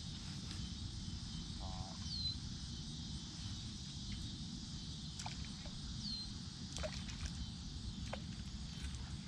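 Outdoor evening ambience by a pond: a steady high chorus of insects, a bird giving a short falling call three times about four seconds apart, and a low steady rumble underneath. A few faint sharp clicks come in the second half.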